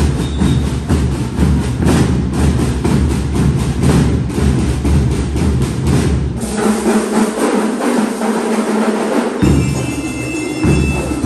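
Marching drum line of snare drums and bass drums playing a fast, driving cadence. After the middle, the deep drum beats drop out for about three seconds, leaving the snares, then come back in.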